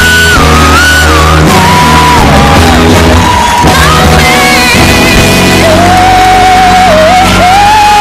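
A solo singer belting long, held high notes with vibrato over loud backing music, one note sustained for the last couple of seconds.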